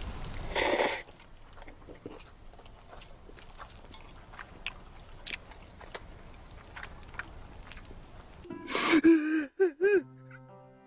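A man slurps a mouthful of jjajang noodles about half a second in, then chews with faint small clicks. Near the end he breaks into a short choked sob with a wavering voice.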